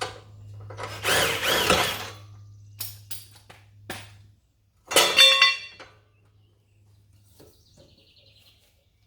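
DeWalt cordless impact driver run in two short bursts on the cart's bolts, about a second in and again about five seconds in, with a few sharp clicks between.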